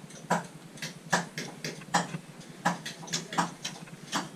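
Footsteps on wooden deck boards: short, irregular knocks, about two to three a second.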